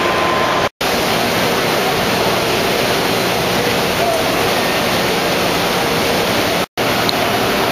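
Loud, steady babble of a crowded exhibition hall, many voices and machinery blurring into one even roar. It drops out abruptly for an instant twice, a little under a second in and again near the end.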